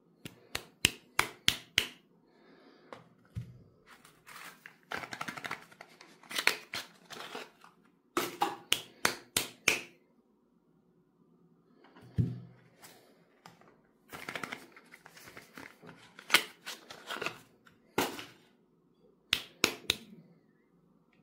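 Fingernails tapping on a hard bar of soap in quick runs of sharp clicks, with short stretches of scratching and rubbing on its surface between them.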